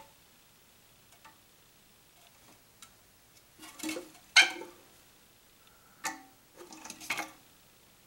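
A few scattered plastic clicks and knocks from a toilet flush-valve cap and its red ring seal being turned over in the hands, with the sharpest click about four and a half seconds in and quiet stretches between.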